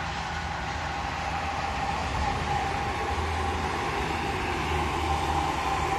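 Highway traffic passing: a steady rush of tyres and engines with a low rumble and a steady whine, growing louder about two seconds in.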